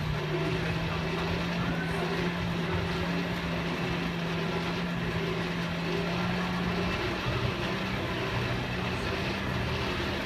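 A steady low mechanical hum over a busy background, its pitch stepping up slightly about seven seconds in.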